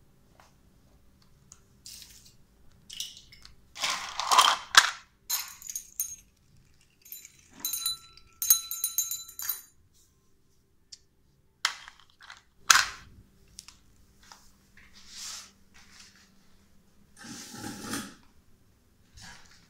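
African grey parrot handling its toys: scattered knocks, rattles and scrapes of small objects, the loudest about four seconds in and again near thirteen seconds. A patch of high squeaky tones comes in the middle.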